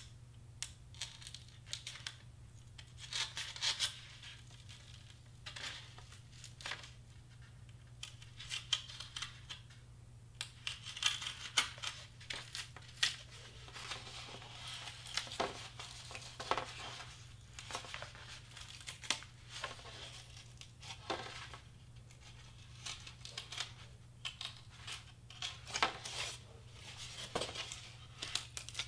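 Hobby knife blade cutting through foam board: irregular short scratchy, crunching strokes as the blade is drawn and pushed along the cut, a few strokes a second at the busiest.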